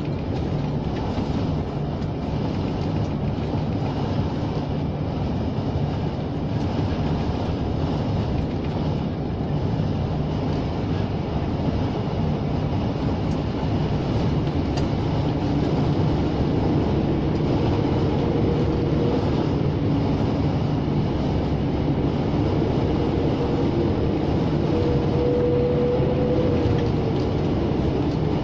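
Scania lorry's diesel engine and road noise heard from inside the cab at steady highway cruising speed, a continuous low drone. About halfway through it gets slightly louder and a higher hum comes in.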